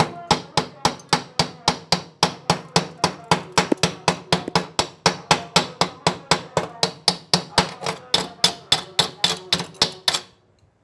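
Chipping hammer knocking slag off a fresh stick-weld bead on thin square steel pipe. It strikes rapidly and evenly, about four to five strikes a second, each with a short metallic ring, and stops shortly before the end.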